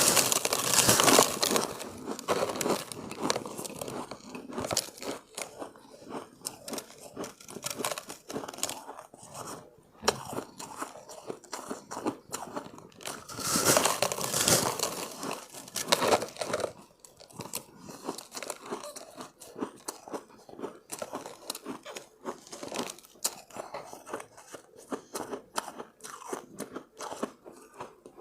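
Close-up crunching and chewing of refrozen shave ice, a dense crackle of breaking ice grains. Louder crunching bites come near the start and again about halfway through, with steadier chewing between.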